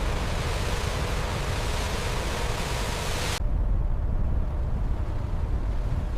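Steady rushing noise over a low rumble; about three and a half seconds in, the hiss cuts off suddenly, leaving the rumble.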